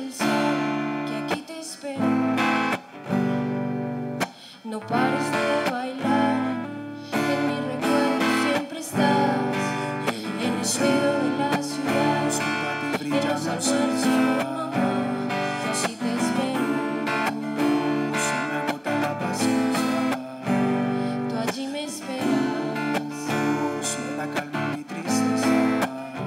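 Live band music led by a strummed acoustic guitar, amplified through stage speakers.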